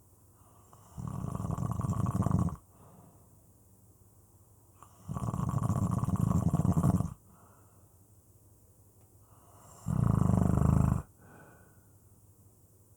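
A person snoring: three loud snores about four to five seconds apart, each lasting one to two seconds, with much quieter breathing between.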